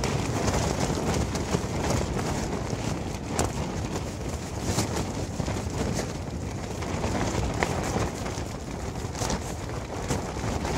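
Strong wind buffeting the microphone: a steady, rumbling rush, heaviest in the low end, with scattered faint ticks and crackles throughout.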